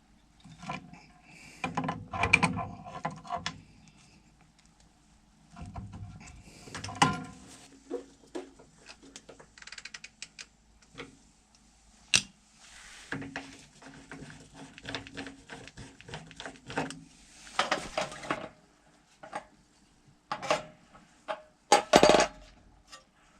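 Hand tools and metal parts clinking, clanking and scraping in irregular bursts of clicks and knocks, the sound of fittings being worked on a water heater's gas control valve; the loudest clatter comes near the end.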